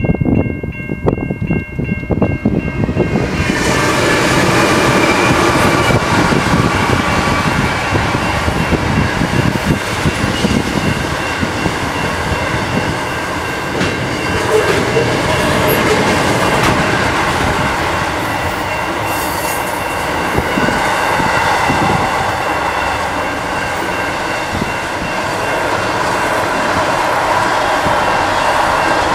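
Freight train passing, led by two NR class diesel-electric locomotives. A chord of steady horn tones sounds for the first three seconds or so as the train approaches. Then a long line of wagons rolls past with loud, continuous wheel and rail noise.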